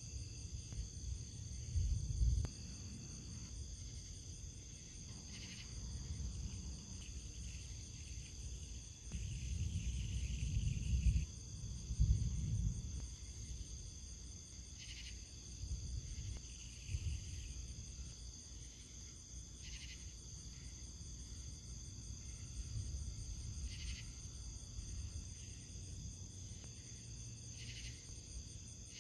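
Insects trilling steadily at several high pitches, with low rumbles coming and going underneath, loudest about two seconds in and again around ten to twelve seconds in.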